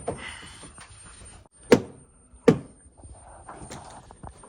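Two sharp knocks on the wooden window frame, a little under a second apart, with quieter handling and rubbing noise before and after.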